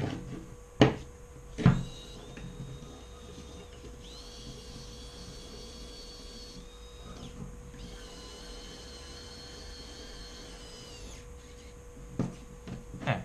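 Xiaomi Wowstick 1P electric precision screwdriver's small motor whining as it drives a screw, in spells: it starts about two seconds in, steps up in pitch, stops briefly about halfway, then runs again until near the end. Two sharp knocks come just before it starts.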